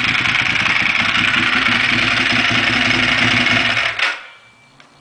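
Ducati Monster S4RS's Testastretta L-twin breathing through a Termignoni full exhaust system, idling loudly and steadily. The sound cuts off suddenly about four seconds in.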